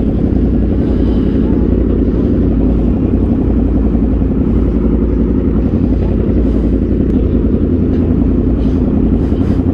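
Yamaha R1 sport bike's inline-four engine running steadily, a dense low-pitched sound with no revving.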